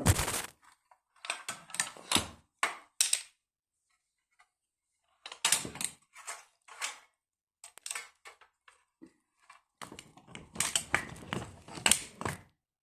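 Irregular clicking and clattering, in several clusters of quick knocks with silent pauses between.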